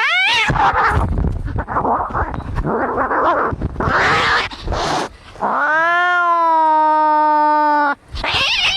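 Angry cats caterwauling in a fight: a rising yowl at the start, a few seconds of rough, noisy squalling, then one long steady yowl from about five and a half seconds in that breaks off about two and a half seconds later.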